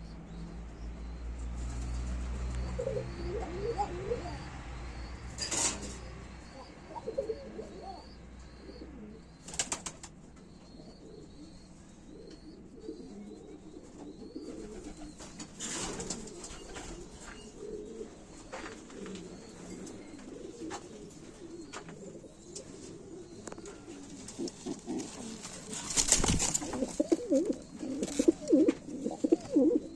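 Domestic pigeons cooing in their loft, repeated low throaty coos that grow loudest in the last few seconds. A few sharp clatters break in at intervals, and a low hum runs under the first third.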